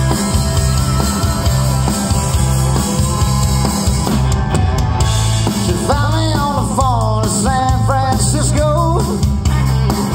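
Live amplified country-rock band playing, with electric guitars, bass and a drum kit; a sung lead vocal comes in about six seconds in.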